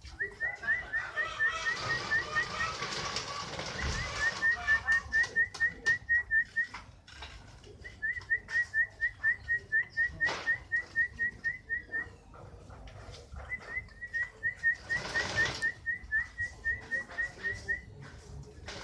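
Domestic canary singing in the Indonesian 'fighter' style: quick runs of the same high chirp repeated about four to five times a second, in phrases of a few seconds with short pauses between. A couple of brief rustling noises come near the start and about three-quarters of the way through.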